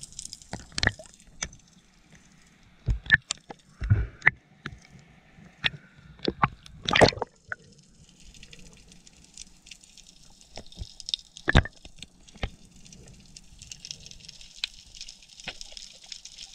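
Underwater sounds as a diver handles gear: irregular sharp clicks and knocks over bubbling water noise, with a high hiss at the start and again from about halfway on.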